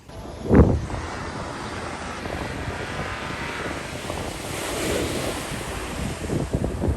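Ocean surf with wind on the microphone: a steady wash of noise that swells about two-thirds of the way through. A loud low thump comes about half a second in, with a few smaller thumps near the end.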